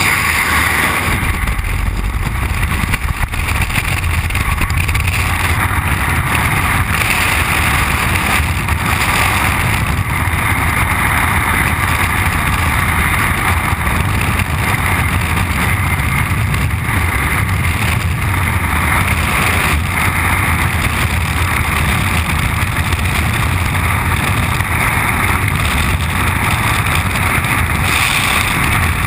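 Skydiving freefall wind rushing over a helmet camera's microphone, loud and steady: a low rumble with a hiss above it.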